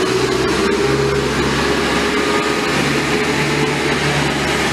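Kobalt upright air compressor running, its 1-horsepower, 110-volt Marathon electric motor driving the pump with a steady hum.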